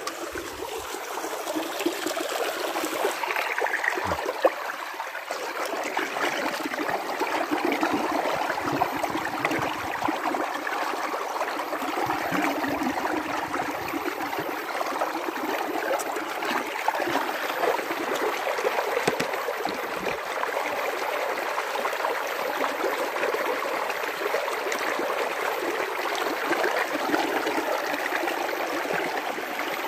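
Shallow stream running steadily over rocks, trickling and splashing.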